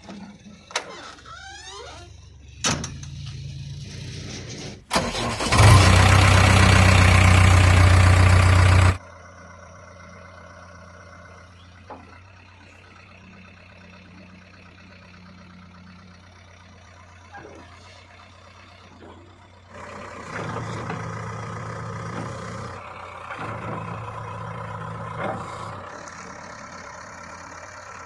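A few clicks and knocks, then a diesel engine starts. It runs loud and revved for about four seconds, settles to a steady idle, and is revved up again for several seconds near the end.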